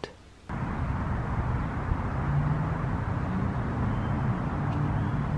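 Steady outdoor background rumble with a faint low hum, like road traffic, starting about half a second in after a moment of near silence.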